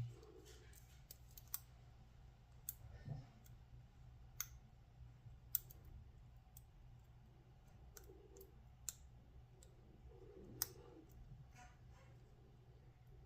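Faint, irregular clicks of a long-reach lock pick working the pins of a Yale BF-10 laminated padlock under top-of-keyway tension, during single-pin picking.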